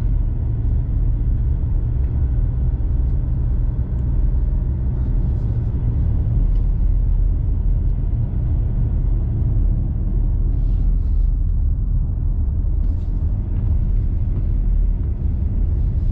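Steady low rumble of a diesel vehicle driving uphill on a road, heard from inside the cabin as engine and tyre noise.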